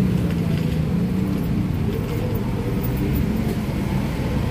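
Motorcycle engine running steadily, a low even hum that holds its pitch.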